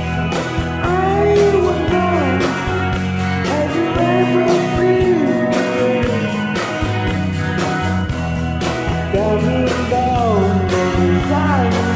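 Rock song recording with guitars, bass and drums and a melodic lead line that bends and slides in pitch.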